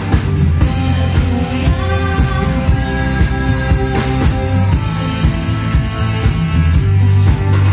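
Live band playing an upbeat song with a steady beat: electric guitar, bass guitar, saxophone and percussion, with a woman singing.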